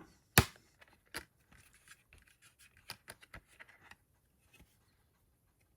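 Handling noise from a Blu-ray steelbook case and its discs: one sharp click about half a second in, followed by lighter clicks, taps and rubbing that die away after a few seconds.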